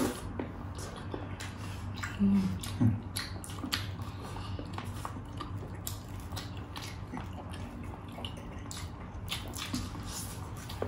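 Close-miked eating with the hands: wet chewing, lip smacks and mouth clicks from two people eating fried chicken and rice, with a brief low hum a little over two seconds in.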